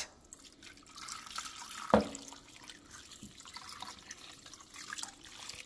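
Thin flour-and-broth slurry pouring from a glass measuring cup into a slow cooker crock over chicken wings, a steady liquid stream with small drips. A single knock sounds about two seconds in.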